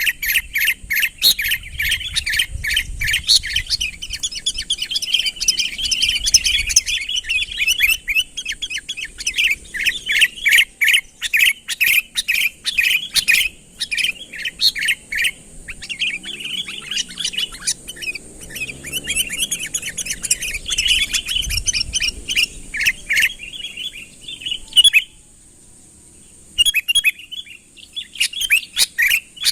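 Sooty-headed bulbul (kutilang) chattering persistently: rapid, dense runs of bright chirps, broken by a short pause near the end. This is the eager calling that draws rival bulbuls in.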